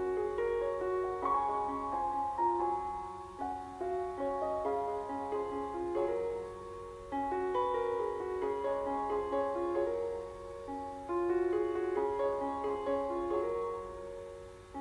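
Background piano music, a gentle melody with chords.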